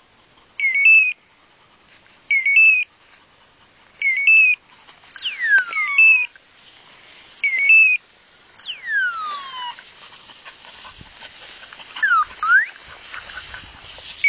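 Electronic beeper collar on a hunting pointer giving a short high beep about every 1.7 s, which stops after about eight seconds. Long falling whistles sound three times around the middle, and dry grass rustles.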